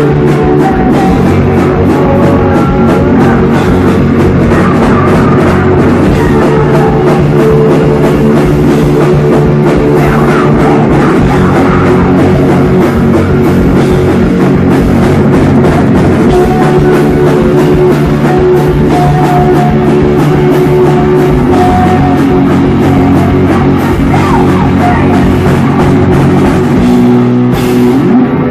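Live rock band playing loud, with electric guitars, bass guitar and a drum kit. The drums stop just before the end, leaving the guitars ringing.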